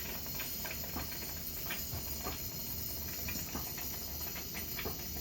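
Dental unit's automatic purge and suction cleaning cycle running: a steady hiss and low hum with irregular small crackles and clicks as water and air pass through the line.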